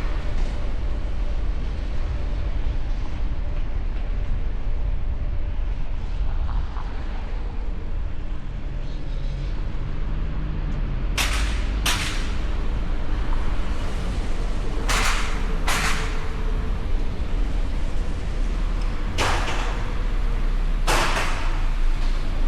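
City street traffic with a steady low rumble. From about halfway it is broken by three pairs of short, sharp bursts of noise.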